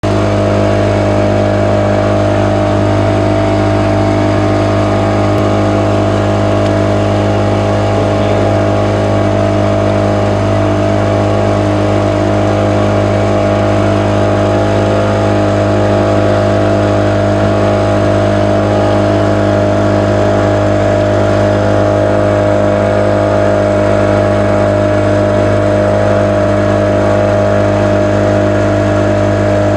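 Motorboat engine running steadily under way, an even, loud drone with a strong low hum whose pitch does not change.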